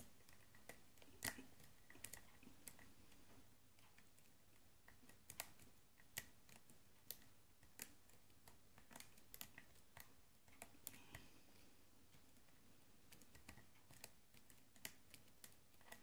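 Faint, irregular small metallic clicks of a pick and tension wrench working the pin stack of a brass American pin-tumbler padlock with serrated key pins, the core held in a false set under fairly heavy tension.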